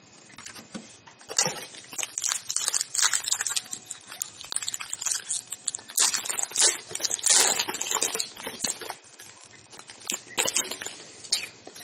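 A trading-card pack wrapper crinkling and tearing as it is opened, with cards shuffled in the hands, in irregular crackly bursts.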